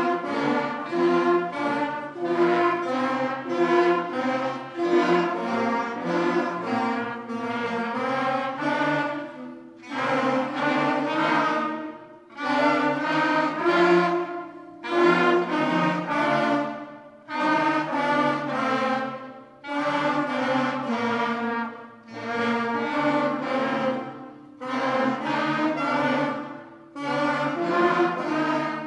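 Young student band of clarinets, saxophones and trumpets playing the Lesson 5 scale-pattern warm-ups: notes stepping up and down together in short phrases, with brief gaps between phrases.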